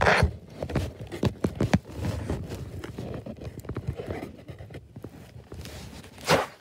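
Handling noise from the camera being moved against the puppet's foam body: irregular taps and knocks with rustling, and louder rubs at the start and about six seconds in.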